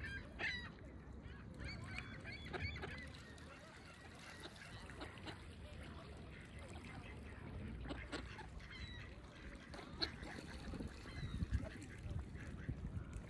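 Waterfowl on open water calling: a Canada goose honking among mallard ducks, in scattered short calls that come more often near the end.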